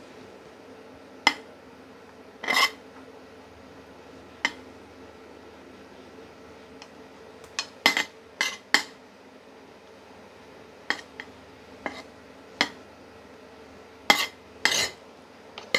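Metal spoon clinking against a metal pizza pan and a plastic plate while spreading tomato sauce over pizza dough: about a dozen short, irregular clinks, some in quick pairs, with the loudest near the end.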